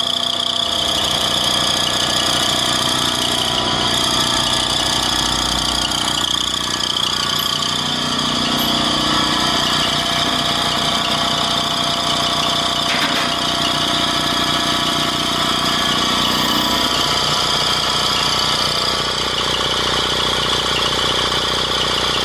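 Belt-driven air compressor with an asynchronous (induction) electric motor running steadily under load as it pumps up its tank, with a constant high whine over the drone.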